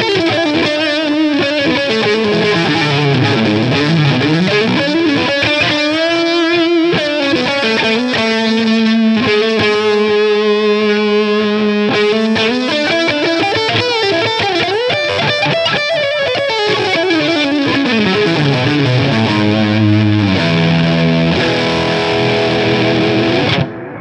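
Electric guitar with high-gain distortion: a 1992 PRS CE24 played through its Gibson '57 Classic neck pickup. It plays a lead line of held notes with sliding bends and vibrato, and stops abruptly just before the end.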